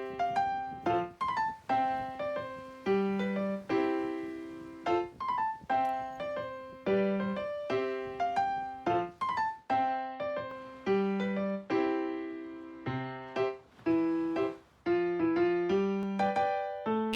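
Background music: a light electric-piano tune, plucked-sounding notes that die away in a steady, bouncy pattern.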